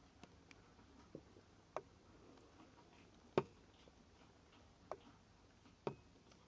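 About half a dozen faint, sharp clicks and light taps at irregular intervals over a quiet room background, the loudest about three and a half seconds in.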